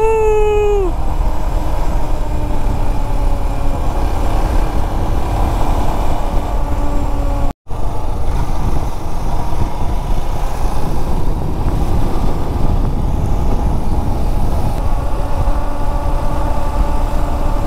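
Motorcycle riding along the road: a steady engine note under heavy wind rumble on the helmet microphone. A short falling tone sounds right at the start, and the sound cuts out for a split second about seven and a half seconds in.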